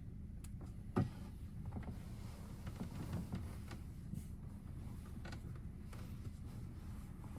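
Quiet indoor room tone: a steady low hum with scattered faint clicks and one sharp knock about a second in.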